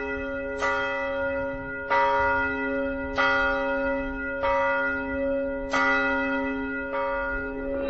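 A church bell tolling slowly: a single bell of one pitch struck about every second and a quarter, six strikes in all, each one ringing on into the next.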